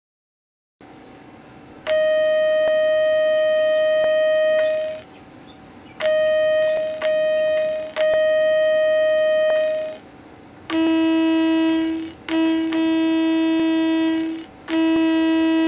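Synthesized train horn tones from a homemade microcontroller sound generator for model railways, in clean electronic pitches. First comes one long high toot, then three toots at the same pitch. About two-thirds of the way in, three longer blasts sound about an octave lower.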